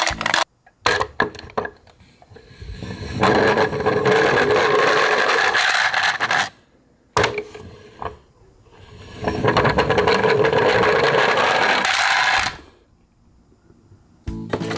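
A small motor whirring with a raspy buzz in two stretches of about three seconds each, with short clattering before them.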